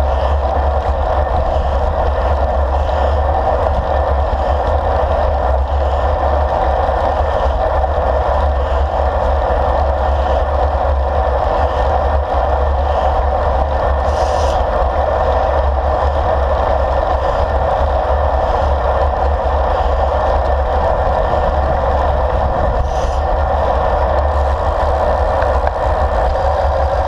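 Steady wind rush and road rumble on a handlebar-mounted action camera's microphone while a road bicycle rolls along at speed.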